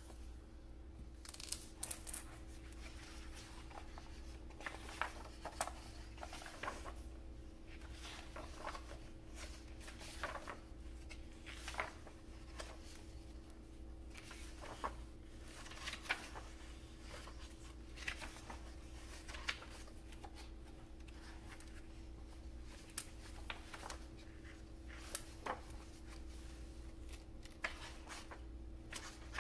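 Pages of a large hardcover book turned by hand: irregular crisp paper rustles and flips every second or two, over a steady low hum.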